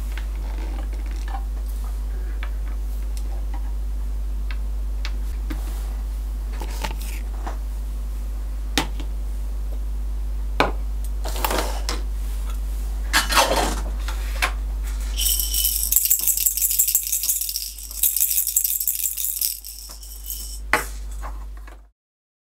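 Plastic toy dishes, cutlery and toy food clicking and clattering as they are handled and set down, with scattered clicks that grow busier and turn into a dense, jingly rattle in the last several seconds, over a steady low hum.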